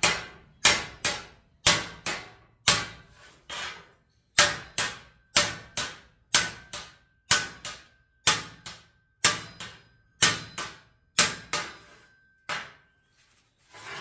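Hand hammer blows on a bent metal crossbar laid across an anvil, straightening the bend out of it. The sharp metallic strikes mostly come in quick pairs about once a second, with a faint ring after them and a short pause near the end.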